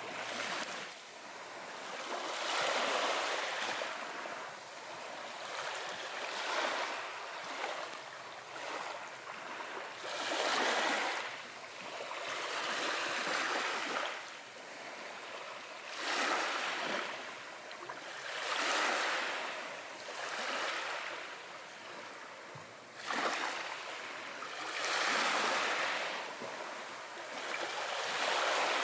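Small waves washing in, each one swelling into a hiss and fading away every two to three seconds.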